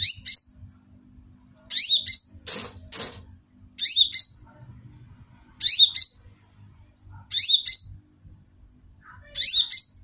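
Caged male kolibri ninja sunbird singing about seven short, sharp, high twittering phrases, one every one and a half to two seconds.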